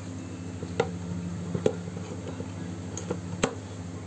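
A steady low hum of several fixed tones, with four or five sharp knocks and clicks scattered over it.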